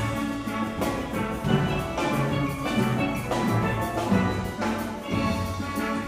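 A steel band playing: many steelpans of different ranges strike ringing melody and chord notes over low bass notes, with drums keeping a steady beat.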